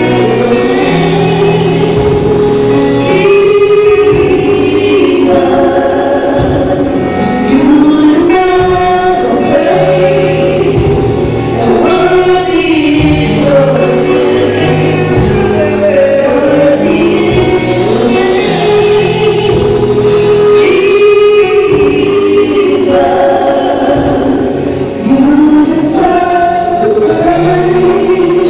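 Gospel choir singing with instrumental accompaniment.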